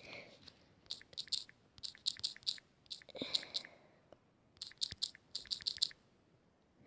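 Bursts of quick, sharp clicks or taps, several a second, with a short soft breath about three seconds in.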